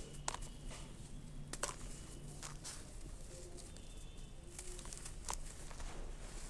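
Crumbly red dirt breaking apart and dropping onto a floor, a soft patter with a few sharp crunches.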